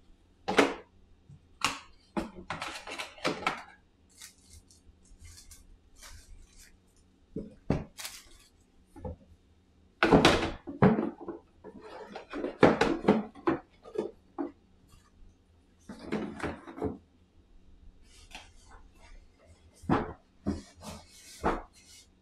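Plastic insert trays and cardboard box parts of a board game being handled and packed back into the box: irregular clicks, clatters and thunks with short pauses, busiest about ten to fourteen seconds in.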